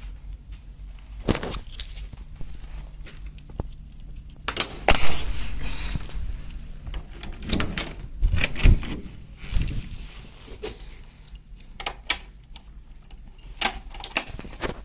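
Metal keys jingling among a run of clicks and knocks, with the loudest jingle about five seconds in.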